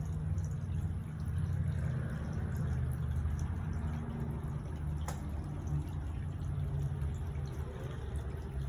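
Water from a small two-tier ceramic pot fountain trickling and splashing steadily.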